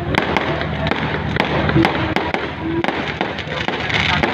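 Fireworks going off, a rapid, irregular run of sharp bangs and pops over a continuous rumble.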